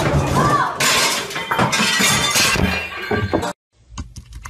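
A loud crash with glass clinking and breaking, lasting about three and a half seconds and cut off abruptly. Near the end come a few clicks of computer keyboard typing.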